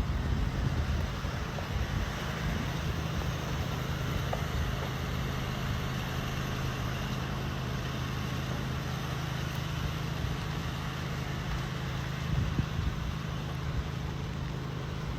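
Steady motor-vehicle hum and road noise, an even low drone that holds throughout with no sharp events.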